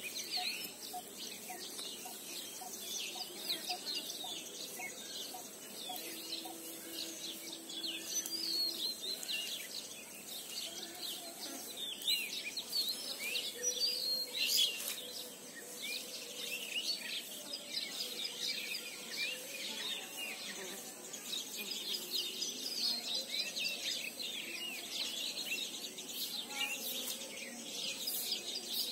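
Wild birds chirping and calling, many short overlapping calls throughout, over a thin steady high-pitched tone.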